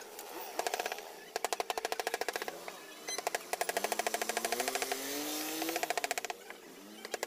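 Carving tool working a wooden panel, rattling in bursts of rapid clicks about a second long with short pauses between. A faint rising tone runs through the middle.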